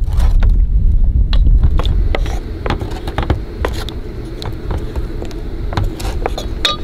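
Wooden spoon clicking and knocking against a metal pan as it pushes a skinned rattlesnake around in an egg-and-milk wash, with a number of irregular taps. Wind rumbles on the microphone underneath, heaviest in the first two seconds.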